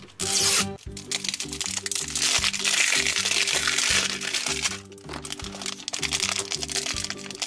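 Crinkling and crackling of a toy ball's cellophane wrapper and a foil blind bag being torn open by hand, over cheerful background music.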